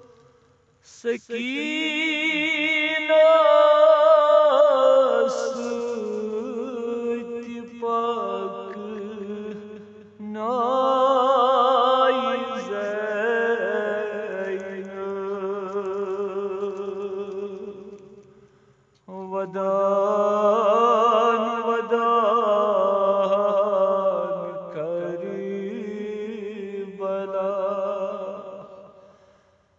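A man's solo voice chanting a noha, a Shia lament, in long drawn-out phrases with heavy vibrato. Three long phrases are broken by short breaths, and no instruments are heard.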